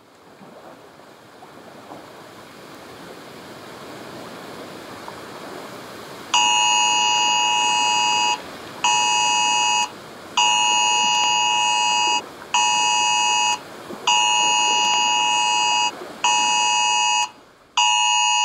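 A soft rushing noise swells up over the first few seconds. Then an emergency alert attention tone, a harsh two-tone signal from a phone, sounds in repeated pulses that alternate long and short with brief breaks, and it is much louder than the noise.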